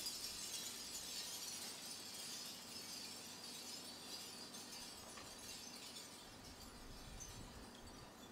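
Seashell wind chimes, hanging strings of scallop and other shells, clinking and rattling together in a dense light tinkle that slowly fades.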